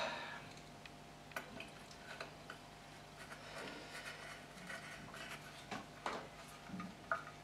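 Faint clicks and light scraping of a screwdriver and small screws being fitted to the chrome cover of a motorcycle's front brake caliper, a few sharper clicks standing out, over a steady low hum.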